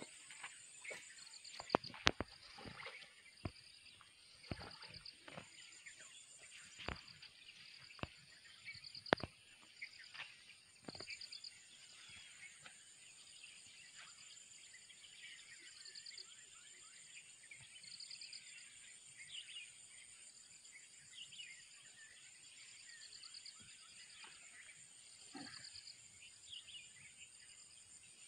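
Outdoor ambience of insects trilling steadily at a high pitch, with a pulsed chirping that repeats every second or two. Scattered sharp knocks and clicks fall in the first ten seconds, and faint bird chirps come later.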